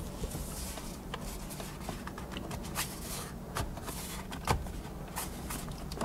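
Scattered light clicks, taps and rustling from hands working loose plastic dash trim around the gauge cluster, with one sharper knock about four and a half seconds in, over a low steady hum.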